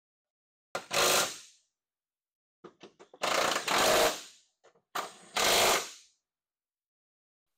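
Cordless impact wrench hammering bolts tight in three short bursts, the last two led in by a few quick trigger blips.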